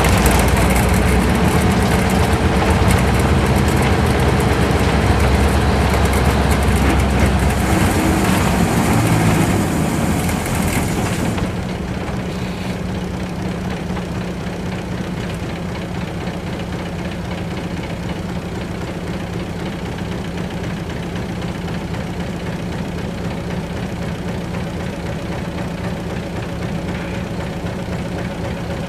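Isuzu Cubic KC-LV380L city bus's V8 diesel engine heard from inside the cabin, running with road noise as the bus slows. About eleven seconds in the road noise stops and the engine settles into a steady idle while the bus stands still.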